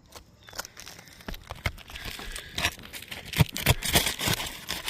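Asphalt shingles crackling and scraping as they are handled and lifted, an irregular run of small clicks that grows busier and louder about two seconds in. The shingles are brittle enough to rip and crease when lifted.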